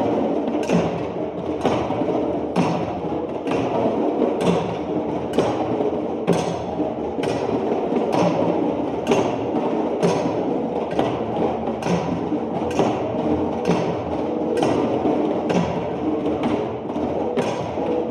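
Live music with percussion: a sharp knock keeps a steady beat about once a second over a dense, sustained band of sound.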